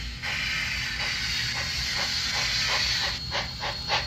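Sound decoder of an HO scale Class A Hiawatha steam locomotive model playing a steady steam hiss through its small speaker. About three seconds in, exhaust chuffs begin at four to five a second and grow louder as the model gets under way.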